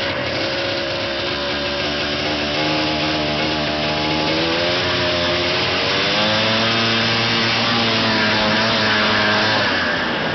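Ski-Doo Blizzard 9500 snowmobile's two-stroke engine running hard and revving, its pitch rising and falling several times and climbing to a higher, steadier pitch about six seconds in.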